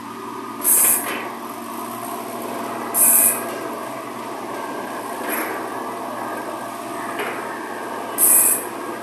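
Construction-site machinery din, steady, broken three times by a short, loud, very high-pitched hiss or squeal, about a second in, about three seconds in and near the end, with two fainter ones between.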